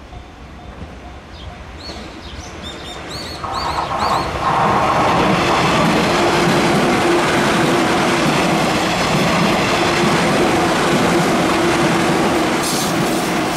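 A train on the Tokaido Main Line passing close by. It grows louder over the first four seconds, then runs past loudly for about nine seconds with a steady hum under the wheel noise, easing off near the end. Birds chirp briefly before the train arrives.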